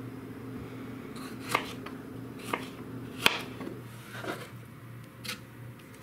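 Roma tomatoes being cut and handled on a plastic cutting board and in a blender jar: about five sharp knocks roughly a second apart, the loudest a little past the middle. A low steady hum runs underneath and stops about two-thirds of the way through.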